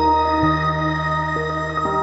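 Calm ambient background music: sustained synth tones over a slow-changing bass line.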